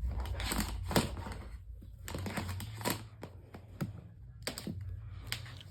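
Irregular sharp clicks and knocks, about eight of them, over a steady low hum. The hum fits the Lasko 18-inch oscillating table fan running with its replacement five-blade fan blade.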